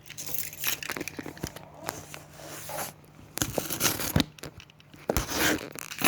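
A product box being opened by hand: tearing and crinkling of packaging, with irregular rustles and short knocks that grow louder in the second half.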